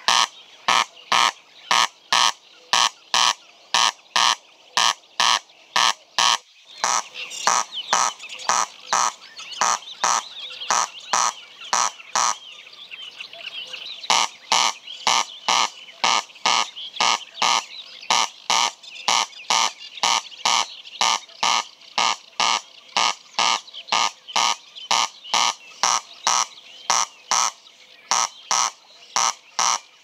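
Corn crake (Crex crex) calling its repeated 'crex crex', a steady train of dry rasping notes about three a second, with a short break about twelve seconds in.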